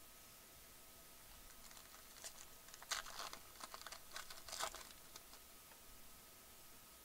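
Foil wrapper of a baseball card pack crinkling and tearing as it is opened by hand: a faint cluster of short crackles about two to five seconds in.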